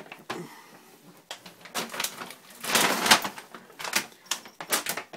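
Foil bag of dry cat food crinkling as it is handled, in several separate bursts, the loudest about three seconds in.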